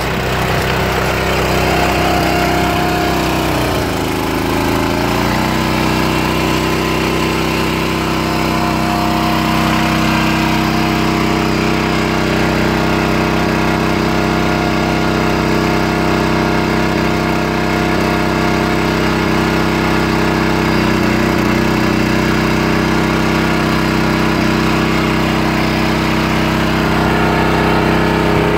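Barreto 912 walk-behind trencher's gasoline engine running steadily while the digging chain works. About four seconds in, the engine bogs down under load and then picks back up.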